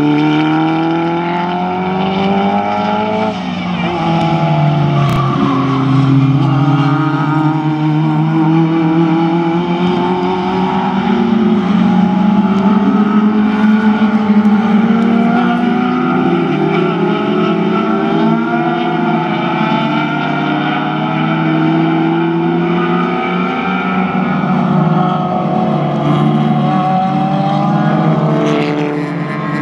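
Several historic touring race cars running at full throttle, their engines revving up and dropping back at gear changes. Their rising and falling engine notes overlap as the cars pass in a group.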